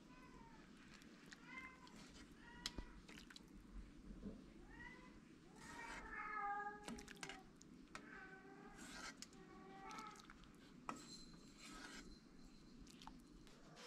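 A cat meowing again and again, a series of short calls that rise and fall in pitch, the longest and loudest about halfway through, with a few faint clinks.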